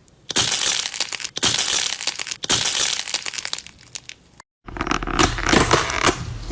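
Crunchy slime being squeezed and pressed, giving dense crackling and crunching. It cuts off abruptly about four and a half seconds in, and another squishy, crackling slime clip follows.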